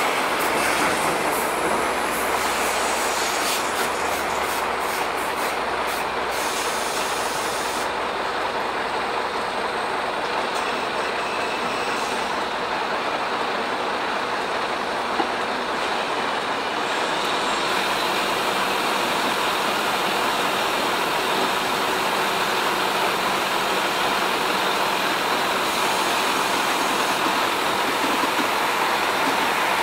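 Mercedes-Benz Arocs 2148 tipper truck's diesel engine running steadily while the semitrailer's tipper body is raised hydraulically in the latter part, with a continuous mechanical noise.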